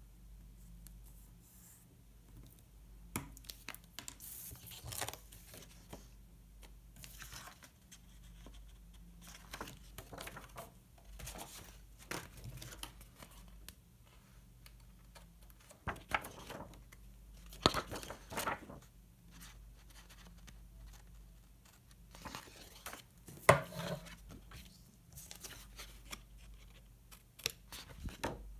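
Paper stickers and washi tape being handled: short, irregular rustles, peels and tears, with a few sharper taps on the desk.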